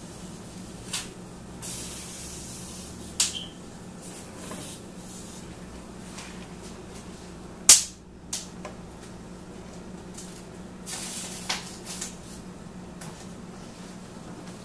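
Steady low room hum broken by scattered sharp clicks and knocks, the loudest about eight seconds in, and a few brief hissing rustles, as from handling near the microphone.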